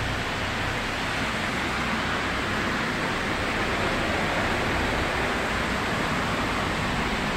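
Steady rain falling: an even, unbroken hiss of rain during a night storm.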